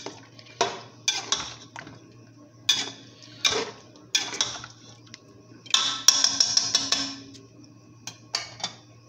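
Metal ladle scraping and clattering against the inside of an aluminium pressure cooker while stirring chicken pieces as they fry in oil. The short scrapes come about once a second, with a longer run of scraping about six seconds in.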